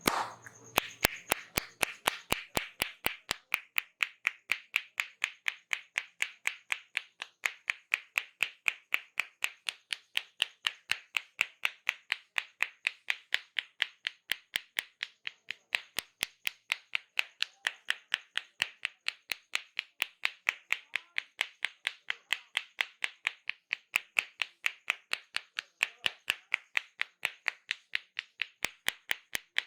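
Rhythmic hand strikes of a barber's massage, palms slapping and clapping at a steady pace of about four strokes a second.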